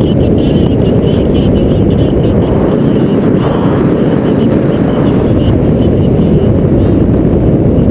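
Wind rushing over a camera microphone in paraglider flight: a loud, steady low rumble of buffeting with no breaks.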